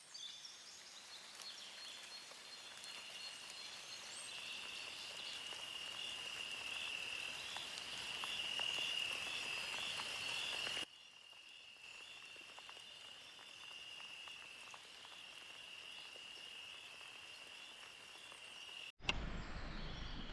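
Insects chirping steadily in a high, even trill over a faint background hiss. The sound cuts off sharply about eleven seconds in and resumes more quietly, and a louder rush of noise comes in near the end.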